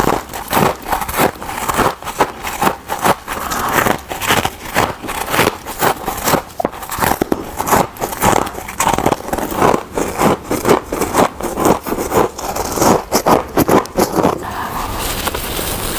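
Person biting and chewing freezer frost and ice edges: rapid, close crunching and crackling, thinning out near the end.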